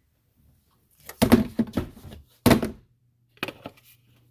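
Several thuds and knocks of things being handled in a kitchen: a cluster about a second in, one loud knock near the middle, then a few lighter ones. A low steady hum starts about halfway through.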